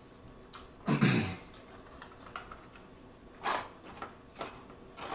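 A few scattered soft clicks close to the microphone, with one louder, short, low puff about a second in.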